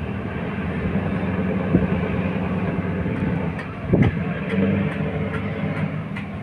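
A fishing boat's engine running with a steady low drone, with a few sharp clicks in the second half and a louder thump about four seconds in.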